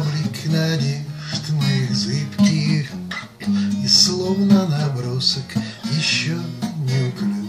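A man singing a Russian bard song while accompanying himself on a strummed acoustic guitar.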